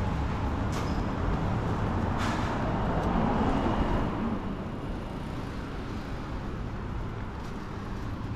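Road traffic going by: the engines and tyres of passing vehicles, louder through the first half and easing off after about four seconds.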